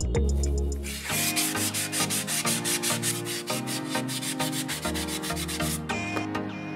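A sanding sponge is rubbed in quick short strokes over a cast plaster egg, smoothing the seam left by the mould. The scratching starts about a second in and stops near the end, over background music.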